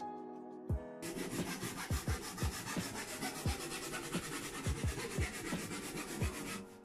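Background electronic music: deep bass-drum hits that fall in pitch, under a dense hiss that comes in about a second in and stops abruptly near the end.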